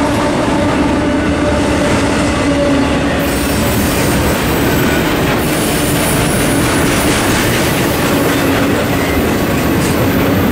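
Double-stack container well cars of a CSX intermodal freight train rolling past steadily, their wheels running on the rails.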